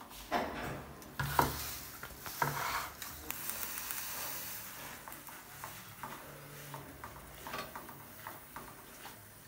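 Stinging nettle leaves being stirred and turned in an aluminium pot with a metal ladle and a wooden stick: irregular scrapes and knocks against the pot and rustling leaves. A steady hiss runs through the middle few seconds.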